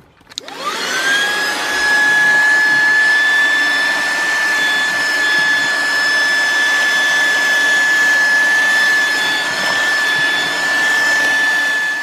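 SehenTools CVC 108 12 V 60 W handheld car vacuum cleaner switched on. Its motor whine rises quickly to a steady high pitch, then it runs steadily with a rush of air, sucking through its narrow crevice tool.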